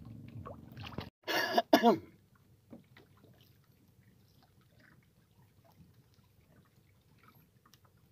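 A man clears his throat loudly in two harsh voiced bursts, about a second in, after a steady low hum that cuts off. Only faint small clicks and knocks follow.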